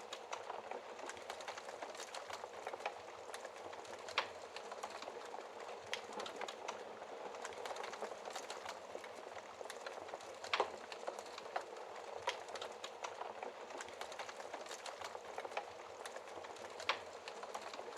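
Wood fire in a fireplace crackling steadily, with frequent small snaps and a few louder pops about 4, 10 and 17 seconds in.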